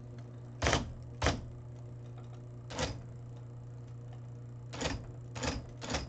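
IBM Correcting Selectric III electric typewriter typing single characters: six sharp clacks of the type ball striking the paper, unevenly spaced, over the steady hum of its running motor.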